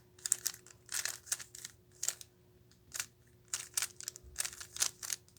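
Plastic 3x3 Rubik's Cube being turned by hand: quick clicking and clacking of its layers in short, irregular bursts.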